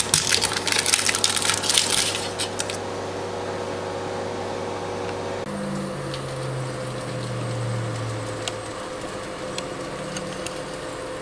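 Crackling and crinkling handling noise in an air fryer basket for the first few seconds, then a steady appliance hum. About halfway there is a change to the even whir of a Breville Smart Oven Air's convection fan running on air fry, with a few faint ticks.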